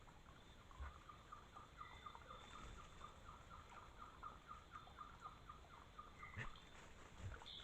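Faint bird calling in the forest: a rapid, even series of short notes, about five a second, running for several seconds, with a few scattered higher chirps.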